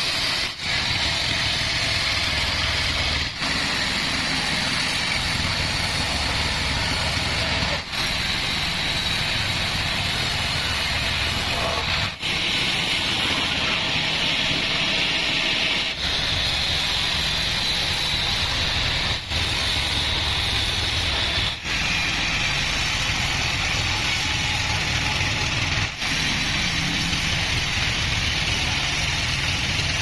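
Pandan Bandsaw36 band sawmill cutting through a mahogany log: a steady, loud hiss of the blade in the wood over the low rumble of the running machine, with brief drops in level every few seconds.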